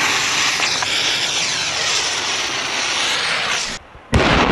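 A jet-flame torch lighter hissing loudly as it lights the fuse of a Motrah firecracker. It cuts off, and near the end the firecracker goes off in one sudden loud bang, followed by echoing.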